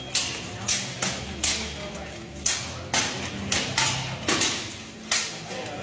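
Steel swords clashing in full-contact armoured sparring, a katana against a longsword, the blades striking each other and the plate armour. About nine sharp metallic hits come at an irregular pace, each ringing briefly in a large hall.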